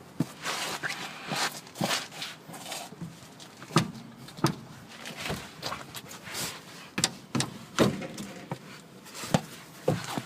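Irregular knocks and clunks from the front suspension of a GAZ 3102 Volga as it is worked by hand to find a knock, suspected to come from a worn kingpin. There are a dozen or so, a few much louder than the rest.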